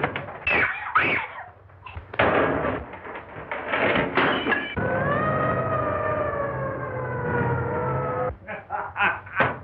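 A violent struggle between two people: scuffling, knocks and short rising cries. About halfway through comes a long wailing tone that slowly falls in pitch for about three and a half seconds, followed by more short bursts.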